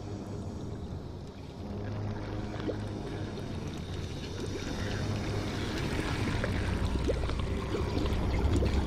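Low rumbling drone of a cinematic logo-trailer soundtrack, swelling steadily louder, with scattered metallic clinks and tinkles of metal shards settling and melting.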